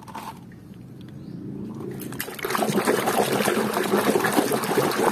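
A hand sloshing and swishing through a plastic basin of muddy water, washing toys. It starts quietly, and the splashing grows loud about two and a half seconds in.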